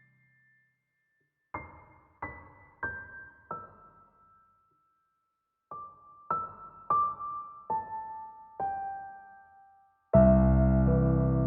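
Gentle solo piano music: single notes struck one at a time and left to ring, in two short falling phrases, then a sudden fuller, louder passage with many notes at once near the end.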